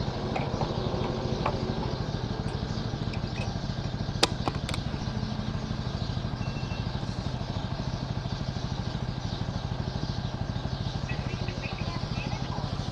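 A motorcycle engine idling steadily, with a single sharp click about four seconds in.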